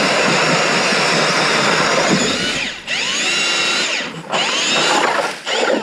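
Cordless drill driving an ice auger, boring a hole through lake ice with a steady grinding whir. In its second half the drill stops and restarts three times, the motor's whine falling and rising each time.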